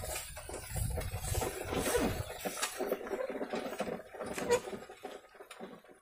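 Bullock cart rolling on a dirt track: the cart's wheels and frame rattle, knock and creak unevenly over a low rumble that fades toward the end.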